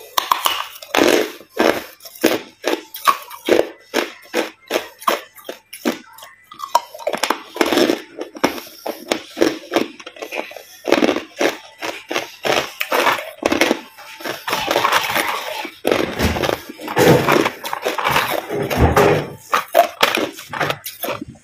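Hard ice being bitten and chewed: quick runs of loud crunches and cracks, with short pauses between mouthfuls.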